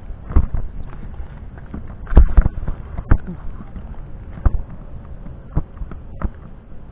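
Irregular thumps and knocks over a low rumble: handling noise from a handheld camera carried on a walk, with the loudest knocks about two and three seconds in.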